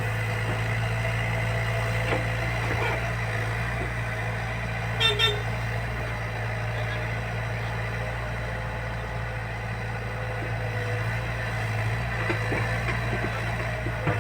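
Heavy vehicle's diesel engine running steadily, with two short horn toots about five seconds in.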